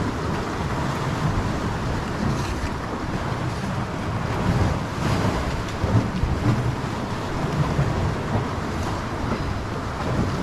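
Wind buffeting the microphone over water sloshing against a small boat's hull, a steady noisy wash.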